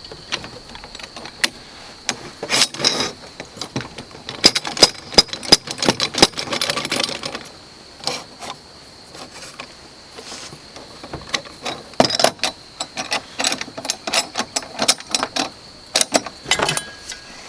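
Metal parts of an Alaskan chainsaw mill clinking and knocking as they are handled and fitted together by hand, in irregular clusters of sharp clicks and rattles.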